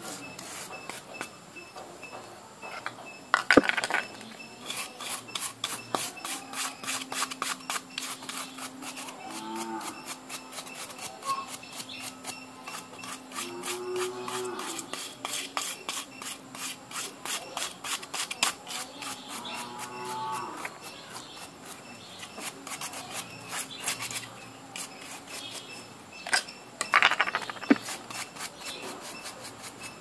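Cuttlebone being scraped with a blade: quick, repeated rasping strokes shaving the chalky bone to powder. Two louder knocks come about three seconds in and near the end.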